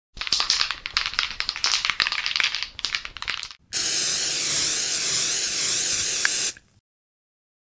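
Aerosol spray-paint can: rapid rattling, as of the can being shaken, for about three and a half seconds, then one long spraying hiss for about three seconds that cuts off suddenly.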